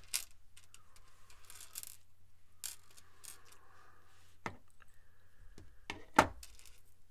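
Small stainless steel chainmail rings clinking and pliers clicking as chainmail is woven by hand: a handful of sharp metallic clicks with light jingling between them, the loudest click a little after six seconds in.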